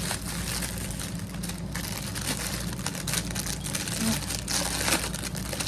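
Plastic packaging crinkling and rustling in irregular bursts as items are handled, over a steady low background hum.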